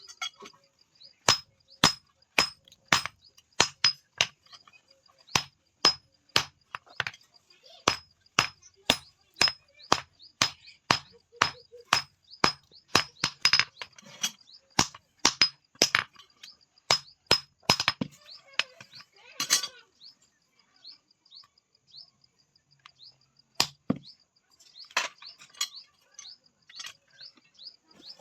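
Hand hammer striking steel on an anvil at a steady rate of about two blows a second, each blow with a high metallic ring. The blows stop about two-thirds of the way through, leaving a few scattered knocks.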